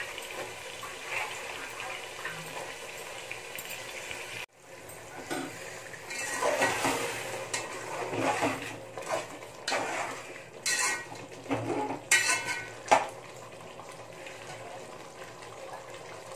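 Metal spoon stirring chicken masala in an aluminium pot, scraping along the bottom and sides in short strokes and knocking against the metal. The sharpest knock comes about thirteen seconds in.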